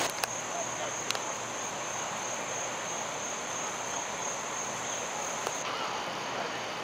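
Insects chirring: a steady high-pitched drone that cuts off about five and a half seconds in, over a steady background hiss, with two faint clicks in the first second.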